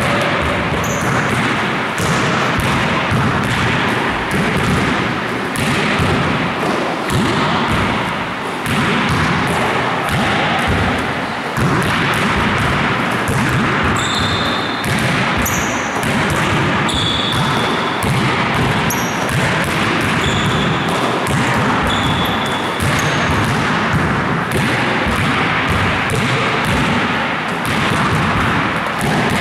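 Basketballs bouncing and being passed in a gym, a dense run of thuds, with short high-pitched squeaks now and then.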